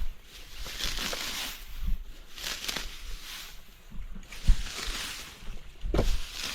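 Shovel digging into a dirt bank: a series of scraping strokes about every one and a half seconds, with dull thuds as the blade strikes the soil, the sharpest about four and a half seconds in.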